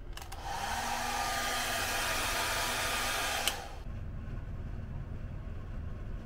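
An electric dryer's fan blowing air for about three seconds, with a steady motor whine under the rush of air. It switches off with a click near the end of the blowing, and a low background rumble continues afterwards.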